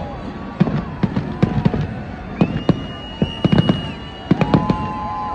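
Fireworks display: a rapid, irregular run of sharp bangs and pops from aerial shells, several a second. At times long, steady whistling tones hang over them.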